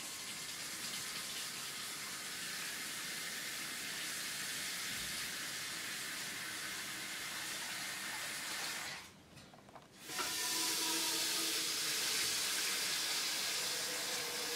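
Water running from a mixer tap into a stainless-steel wash basin, a steady rush of water filling the bowl. It cuts out for about a second around the middle, then starts again slightly louder.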